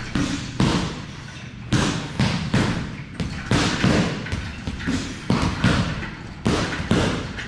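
Boxing gloves punching a double-end bag in quick combinations: a run of sharp smacks, about two a second, with short pauses between the flurries.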